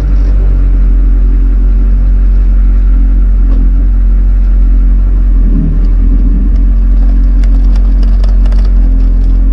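Pickup truck engine running at a steady idle, a loud, low, even hum.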